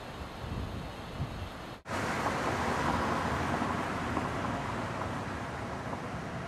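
Low wind rumble on the microphone, cut off suddenly just under two seconds in, then a steady hiss of street traffic as a car drives by.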